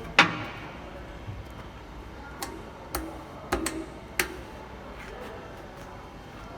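Pneumatic clamping pistons on a double-head aluminium cutting saw actuating: one loud sharp clack about a fifth of a second in, then a run of smaller clicks and knocks between about two and four and a half seconds in as the clamps move.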